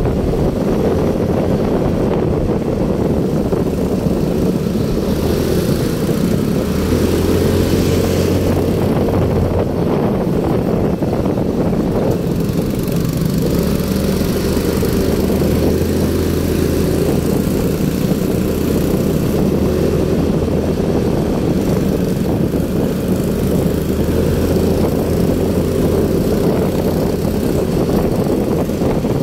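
Motorcycle engine running steadily under way, its note rising and falling a little with speed, with some wind noise over it.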